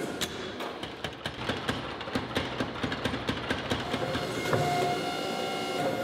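Power hammer pounding a glowing hot steel bar in a fast, even run of blows, about five a second, that stops about four and a half seconds in, leaving a steady hum.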